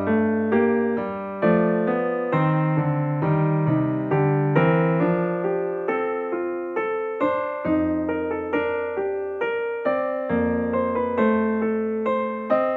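Background piano music: a calm piece of struck notes, each fading after it sounds, following one another steadily.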